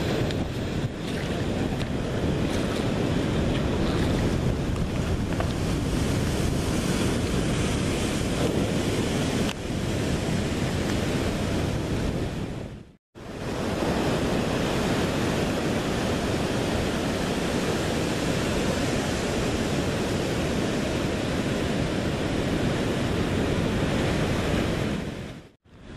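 Ocean surf and wind buffeting the microphone: a steady, heavy rushing noise, broken by two brief dropouts, one about halfway and one near the end.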